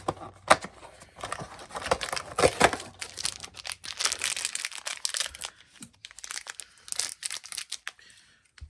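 Crinkly plastic packaging of a mini figure being handled and torn open: irregular crackling and rustling with sharp clicks, tailing off near the end.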